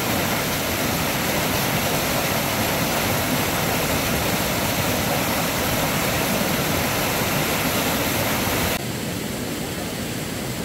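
River water rushing steadily over rocks, a dense even roar of white water. It becomes a little quieter and thinner from about nine seconds in.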